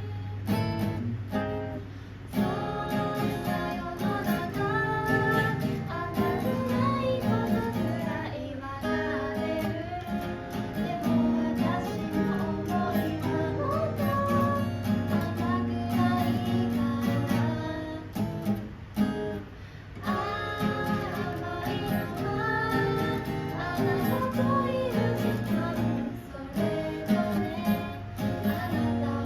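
Acoustic guitar strummed and picked as accompaniment to a voice singing a song, with brief pauses about 2 and 19 seconds in.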